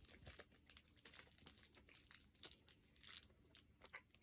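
Faint crinkling of a candy wrapper handled in the fingers: a quick, irregular run of small crackles.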